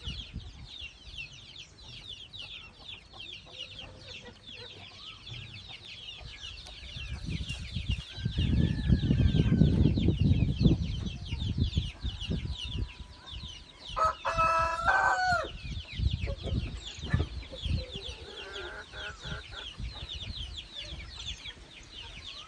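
A rooster, held after being caponized, gives one loud squawking call about two-thirds of the way in, with fainter clucks a few seconds later. A constant high twittering runs throughout, and a loud low rumble comes a third of the way in.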